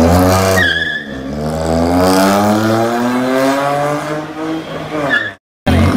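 Volkswagen Polo GT engine and exhaust under hard acceleration: the note drops about a second in, climbs steadily for about three seconds as the car pulls through a gear, then falls again at the next shift. A brief high chirp comes near the start and again just before the sound cuts out for a moment near the end.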